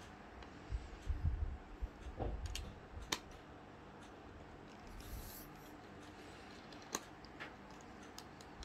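Light clicks and soft knocks of small tools and laptop parts being handled on a workbench during MacBook Pro disassembly: a few dull bumps in the first couple of seconds, then scattered sharp clicks.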